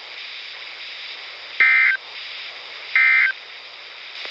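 Emergency Alert System end-of-message data bursts over NOAA Weather Radio: short, shrill warbling digital tone bursts, evenly spaced about 1.4 s apart, two in full and a third starting at the very end, over steady radio hiss. They mark the end of the broadcast warning.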